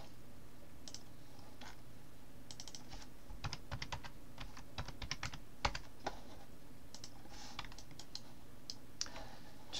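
Computer keyboard and mouse clicks, scattered key taps coming in quick clusters through the middle, over a steady low hum.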